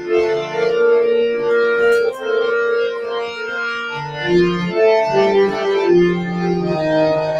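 Instrumental interlude of a Bengali film song's backing music: a keyboard melody of held, organ-like notes, with lower notes coming in about four seconds in.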